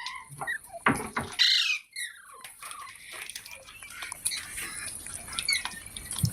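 Pet parrot squawking: a few short calls that fall in pitch, packed into the first two and a half seconds, the loudest about one and a half seconds in. After that come only faint small ticks.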